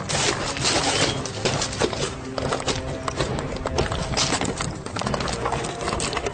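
Background music with fast, dense clicking percussion that sounds like clip-clopping over held notes.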